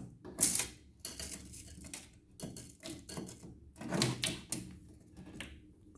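Irregular clicks and rattles of a tape measure being handled and pulled out to measure a wooden frame.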